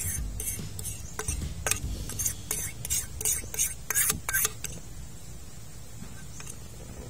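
Irregular sharp clicks and clinks of kitchen utensils around a frying pan of eggs cooking on a portable gas stove, dense for the first four seconds or so and then thinning out, over a low steady hum.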